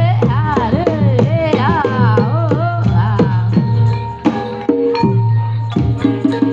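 Live Javanese jaranan gamelan music: rapid hand-drum strokes over steady low gong-like tones. A high melody slides up and down through the first half.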